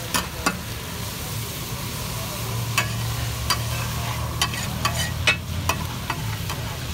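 Chicken pieces sizzling in butter and masala on a large flat tawa griddle, a steady hiss, while a metal spatula scrapes and clinks against the griddle surface at irregular moments as the pieces are turned and pressed.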